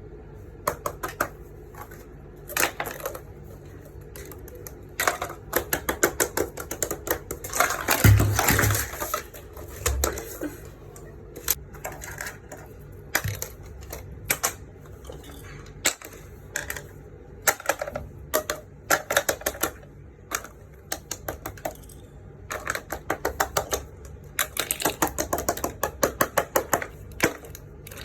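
Fidget toys being handled: runs of quick, sharp plastic clicks and taps, several a second, with a louder thump about eight seconds in.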